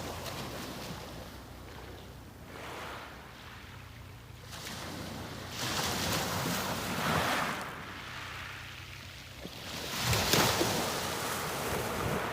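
Sea waves breaking and washing up the shore in swells, two larger breakers coming in about halfway and again near the end.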